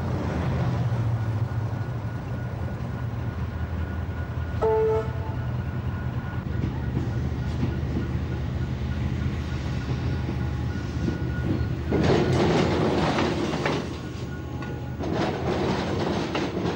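A rail vehicle running over a tram–railway level crossing: a steady low rumble, a brief tone a little under five seconds in, and louder clattering of wheels over the crossing rails from about twelve seconds in and again near the end.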